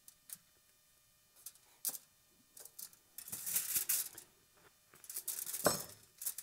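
Small objects being handled on a workbench: a few light clicks, then bursts of scraping and rustling, with one duller knock about two-thirds of the way through.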